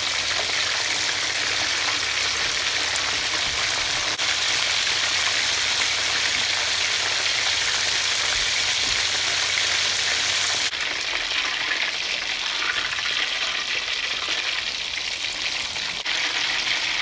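Beef chapli kababs deep-frying in hot oil: a steady, dense sizzle of bubbling fat, which drops slightly in level about two-thirds of the way through.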